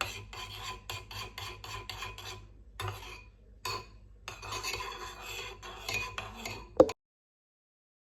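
Quick repeated scraping strokes of a utensil against a dish, about six a second, in several runs with short pauses between them. The runs end in a single sharp knock, then the sound cuts off.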